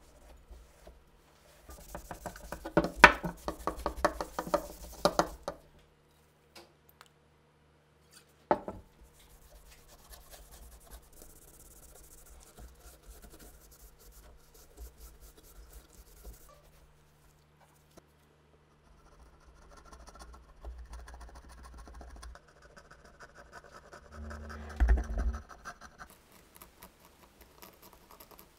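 Hand work on metal parts: scratching and rubbing with a rapid run of clicks and knocks, then a single sharp knock, and a low thud near the end.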